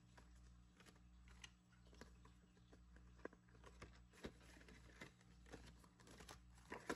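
Faint, scattered small clicks and rustles of a paper banknote and a clear plastic binder envelope being handled as the bill is slipped into the envelope, over a low steady hum.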